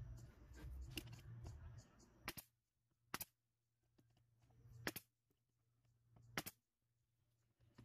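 Pneumatic nailer firing four times, sharp snaps spaced about one to one and a half seconds apart, driving nails through a pine corner brace into a 2x4 leg.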